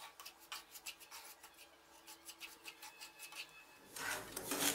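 Wooden spatula stirring and scraping dry semolina in a nonstick kadai: soft, faint rasping strokes, a few a second, getting louder near the end. The semolina is being dry-roasted on medium flame, before any ghee goes in.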